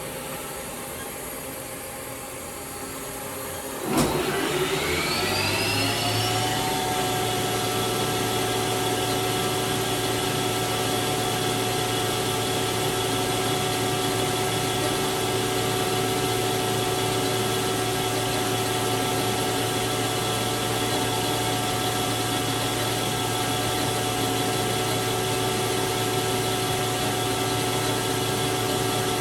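1998 Haas HL-6 CNC lathe spindle starting with a click about four seconds in, its whine rising for a couple of seconds as it comes up to speed, then running steadily. A quieter machine hum runs beneath it before the start.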